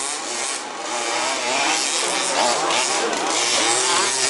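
Several 1/5-scale RC buggies' small two-stroke petrol engines racing, their pitch rising and falling as the throttle opens and closes.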